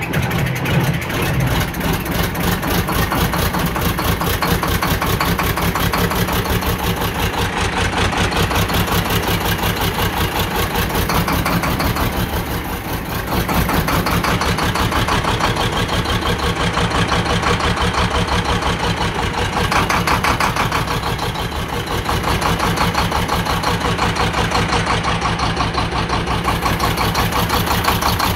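Case 2470 tractor's six-cylinder turbo diesel engine running just after being started on starting fluid, a loud, rapid, even firing rhythm that eases off briefly twice, about midway and again two-thirds through.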